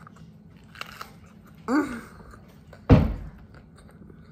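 Faint chewing of a mouthful of crunchy bell pepper sandwich, with a short hummed 'mm' about a second and a half in and a loud thump just before three seconds in.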